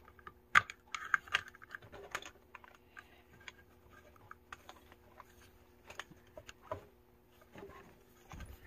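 Plastic-and-metal handling clicks and taps as a phone-holder clamp is screwed onto a tripod head: irregular, with a few sharper clicks among softer ones. A faint steady hum lies underneath.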